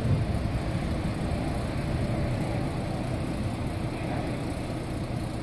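Twin-engine jet airliner at takeoff power, a steady low jet rumble heard from behind as it climbs away, growing slightly fainter.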